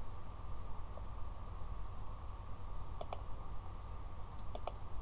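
Computer mouse clicks, two quick pairs: a double click about three seconds in and another pair near the end, over a low steady hum.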